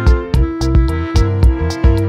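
Background music with a steady beat: held instrument notes over a regular drum pulse of about two to three hits a second.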